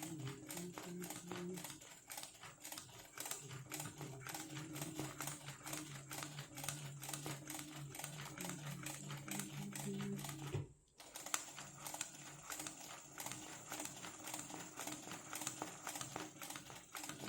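Zigzag sewing machine stitching free-motion embroidery: a rapid, even ticking of the needle over a motor hum that rises and falls in pitch as the speed changes. It stops for a moment about eleven seconds in, then starts stitching again.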